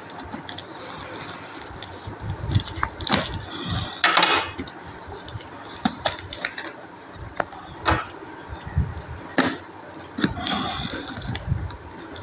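A knife cutting and scraping through packing tape and cardboard on a sealed box, with irregular clicks, scrapes and short tearing rasps of tape; the loudest rasp comes about four seconds in.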